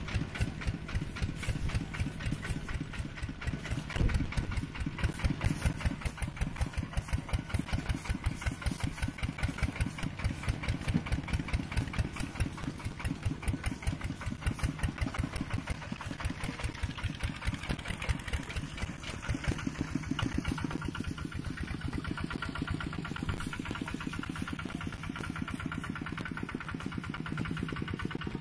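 Mini tractor engine running with an even, rapid pulsing beat, which turns smoother and steadier about two thirds of the way through.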